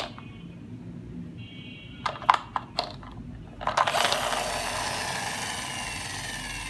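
Toy bus handled: a few sharp plastic clicks, then its gear motor whirring as the wheels spin, the whir slowly dropping in pitch as it runs down.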